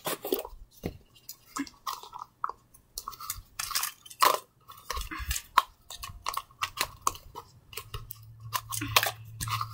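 Handling noises: irregular clicks, taps and rustles as a small plastic cup, its red lid and stuffed toys are picked up and set down.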